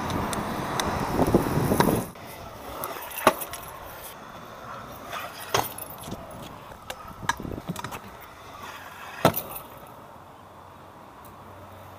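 Freestyle scooter rolling on concrete with wind rushing on the microphone, which cuts off about two seconds in. Then come scattered sharp clacks and knocks of the scooter's deck and wheels striking the pavement; the loudest are about a second after the cut and again near the end.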